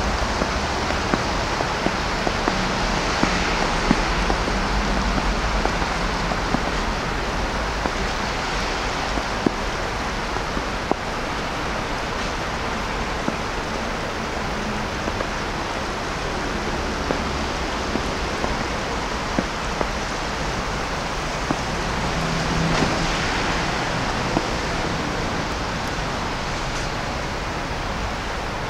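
Steady hiss of a city street in falling wet snow, with scattered light ticks and a brief swell in the noise about three quarters of the way in.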